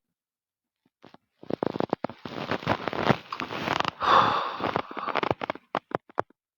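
A man's stomach growling: a dense run of crackly gurgles from gas and fluid moving through the gut. It starts about a second and a half in, swells to its loudest a little past the middle and breaks into separate clicks near the end.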